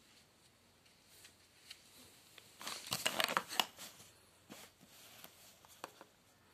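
Plastic toys clattering and rustling as a hand rummages through a pile of them, with a dense burst of clatter about three seconds in and scattered light clicks before and after.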